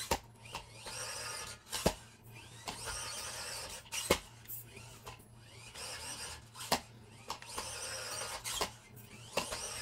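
FMS FCX24 1/24 mini RC crawler's electric motor and geared drivetrain whining in about five bursts as it is throttled up a steep board ramp, with sharp knocks in between as the truck slips back and bumps down. The tires can't get enough grip to hold the climb.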